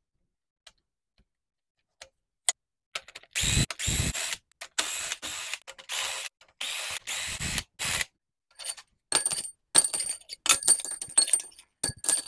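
A cordless power tool runs in about six short bursts as it loosens the cylinder head bolts of a Ford 4.6 L V8. From about nine seconds in come a series of sharp metal clinks and rattles as loose bolts and parts are handled.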